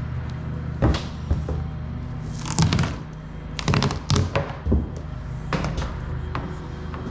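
Background music with a steady low pulse, with several short thunks and knocks scattered through it.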